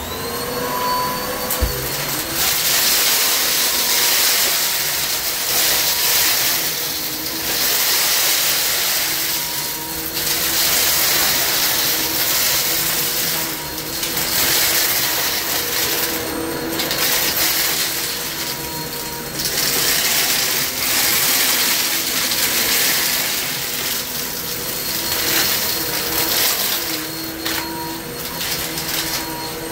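Kenmore upright vacuum cleaner switching on, its motor whine rising at the start, then running steadily. The sound swells and dips every few seconds as it is pushed back and forth, sucking up wood chips with a crunching rattle.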